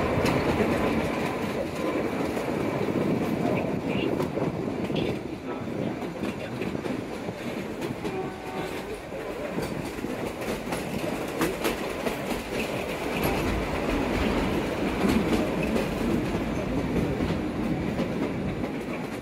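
Narrow-gauge passenger train running along the track, heard from inside the carriage: a steady rumble of wheels and carriage with occasional clicks from the rail joints.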